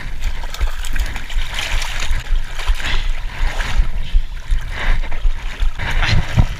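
Water sloshing and splashing, with an irregular low rumble of wind buffeting the microphone.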